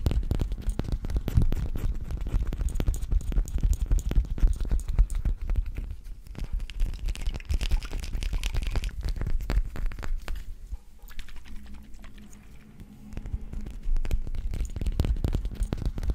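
Fingertips and nails tapping and handling a small glass bottle right against a microphone: a dense run of quick taps and clicks, with a quieter stretch about eleven seconds in.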